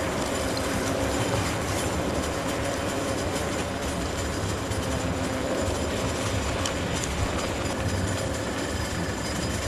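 Steady roar and rumble of a bus travelling at about 50 mph, heard from underneath it: engine, tyres and road noise, with a faint steady whine running through it.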